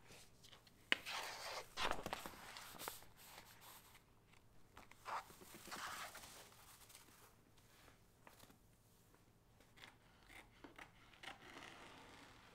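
Window frosting film being unrolled and smoothed over glass: intermittent crinkling and rustling of the plastic sheet, with a sharp click about a second in and a steadier hiss near the end as the film is trimmed with scissors.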